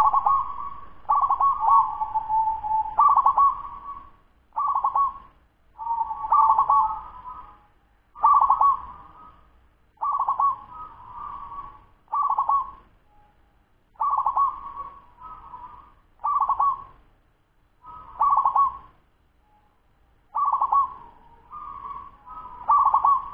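A 10-month-old local zebra dove (perkutut) cooing a fast-tempo song: short, quick phrases of coos repeated every one to two seconds, with brief pauses between them.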